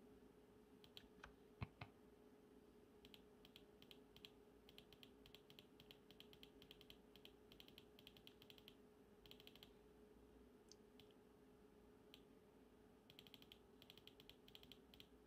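Near silence, with faint clicking of computer keys in short rapid runs and a faint steady hum underneath.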